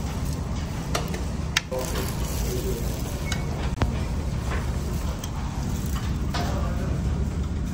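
Serving spoon and tongs clicking against ceramic bowls and steel buffet trays, a few light clinks over a steady low background rumble.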